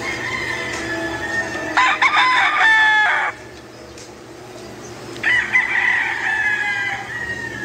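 Gamefowl rooster crowing. A loud crow comes about two seconds in and lasts about a second and a half. Another crow starts about five seconds in and trails off near the end.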